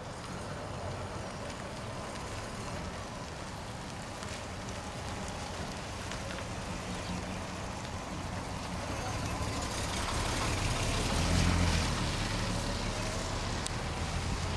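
Vintage Chevrolet Suburban's engine running as the truck drives slowly past, growing louder to a peak about three-quarters of the way through as it passes closest, with tyre noise from the wet road.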